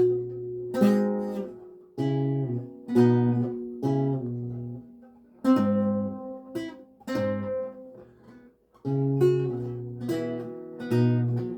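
A 7-course Renaissance lute, tuned to A=415, played solo: slow plucked chords and single notes, each left to ring and die away, with a short silence about three-quarters of the way through.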